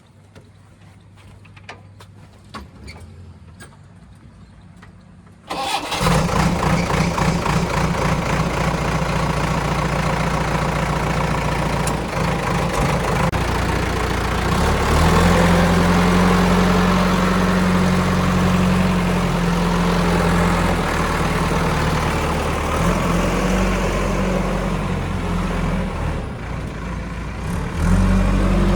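Backhoe loader's diesel engine starting abruptly about five seconds in, then running loud and steady. It works harder from about halfway, eases briefly near the end, then picks up again.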